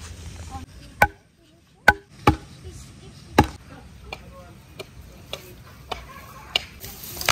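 A series of sharp knocks, unevenly spaced: four loud ones in the first three and a half seconds, then lighter ones about every half second.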